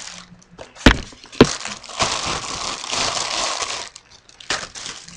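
Packing paper rustling and crinkling as a boot is pulled out of its shoe box, with two sharp knocks about a second in.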